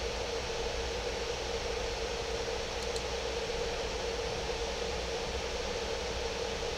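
Steady hiss of background noise with a steady hum underneath, and a single faint click about three seconds in.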